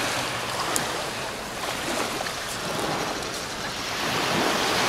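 Small waves washing onto the shore of a calm sea: one wash at the start fades, and another builds near the end. There is a single sharp click a little under a second in.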